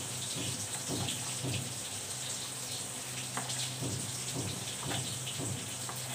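Kitchen knife slicing through stacked pastry sheets on a cutting board: a run of short, irregular cutting taps, several a second, over a steady hiss and low hum.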